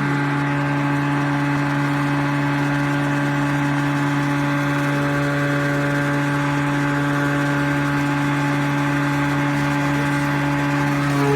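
Greenworks electric lawn mower running steadily while mowing, its motor and spinning blade giving a constant hum with a higher whine above it.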